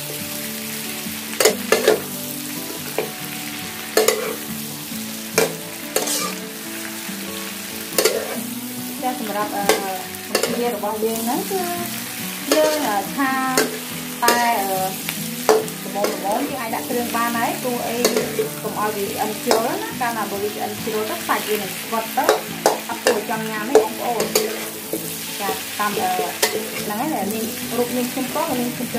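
Whole shrimp frying and sizzling in oil in a metal wok, stirred and tossed with a metal spatula that clinks and scrapes against the pan again and again. From about nine seconds in, a wavering tonal sound runs underneath.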